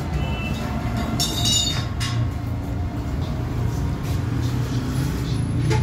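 Stick (arc) welding on a mild-steel grill frame: a steady low electrical hum, with short crackling bursts of the arc about a second and two seconds in.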